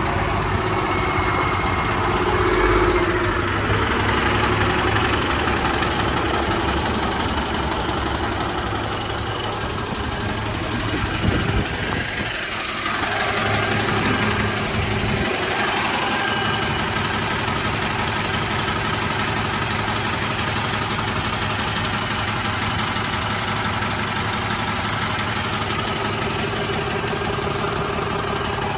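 Ford F750 diesel engine idling steadily, heard from beneath the truck's chassis, with a short knock about eleven seconds in.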